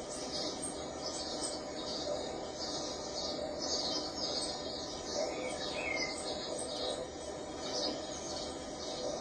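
High-pitched chirps and squeaks, a few each second and irregularly spaced, played through a TV's speakers from a mouse video.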